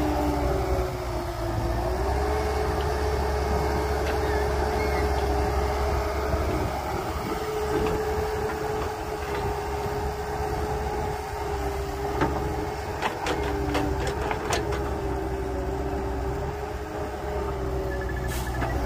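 Heavy diesel earthmoving machinery running steadily, with a constant whine over the engine rumble. A few short knocks come about two-thirds of the way in, and a brief high tone sounds near the end.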